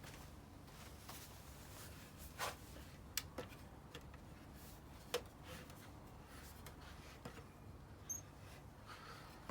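A few light clicks and taps scattered over a faint low hum, the sharpest about three and five seconds in.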